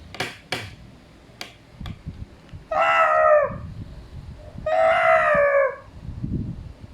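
Two drawn-out, pitched animal calls, each just under a second long and falling in pitch at the end, with a few sharp clicks before them.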